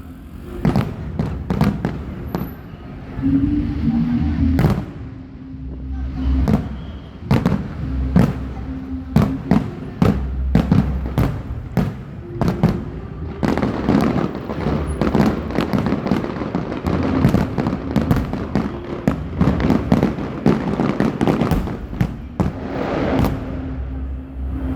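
Fireworks going off: a string of sharp bangs, thickening about halfway in into a dense crackling barrage that lasts roughly ten seconds.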